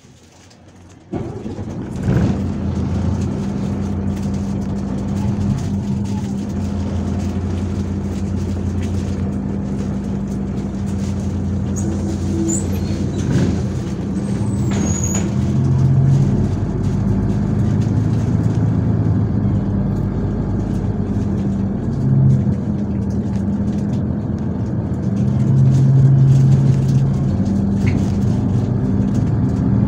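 MAZ 103 city bus heard from inside the passenger cabin as it drives. The diesel engine hum and road noise come in sharply about a second in, and the engine note shifts several times.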